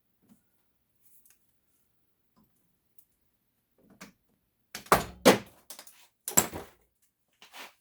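Sharp knocks and clanks of metal parts being struck and handled as a brass fitting is worked out of an aluminum housing. Two loud knocks come close together about five seconds in, another follows a second later, and a fainter one comes near the end.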